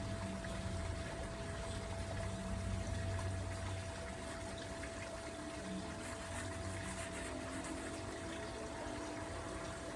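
Steady background hum and hiss with a thin, constant high tone, with no distinct events.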